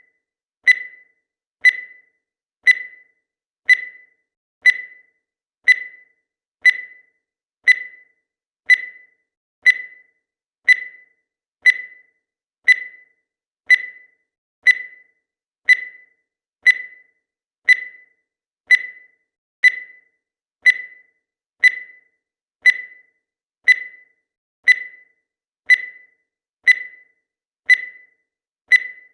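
Countdown timer's electronic tick: a short, high-pitched beep once a second, each one dying away quickly, repeating evenly.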